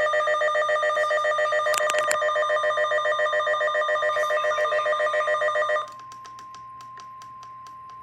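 Emergency alert tones: a loud, rapidly pulsing electronic ringing made of several steady tones cuts off about six seconds in. It gives way to a quieter steady single tone, the weather-radio warning alarm tone, with faint crackling.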